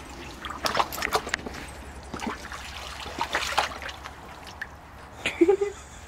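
Water splashing and sloshing in a shallow plastic pool as a miniature piglet climbs in and wades through it, in irregular splashes.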